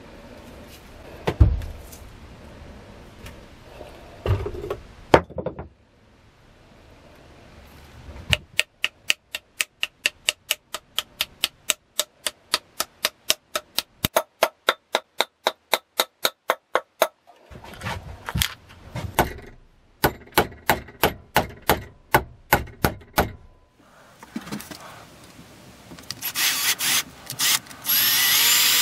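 Hammer blows: a few scattered knocks, then a long run of quick, even taps about three a second, then a slower run of strikes. A power drill starts near the end.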